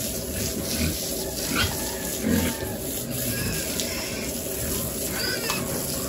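Water hose spraying onto a pen of young pigs, a steady hiss of water, with a few short pig calls over it.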